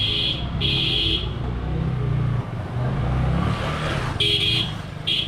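A vehicle horn honking in separate blasts: one that stops about half a second in, another lasting about half a second, then two short toots near the end, over a motor vehicle engine running steadily.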